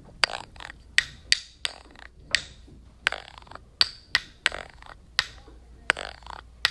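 More than a dozen sharp percussive clicks or snaps in an irregular rhythm, about two a second, each with a brief ringing tail.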